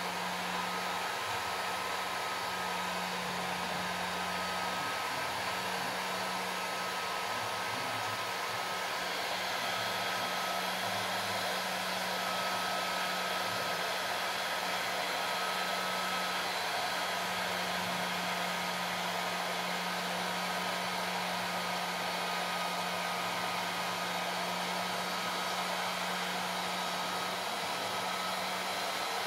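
Bosch electric heat gun running steadily, blowing hot air to shrink heat-shrink tubing over a cable splice: an even rush of air with a steady low hum beneath it.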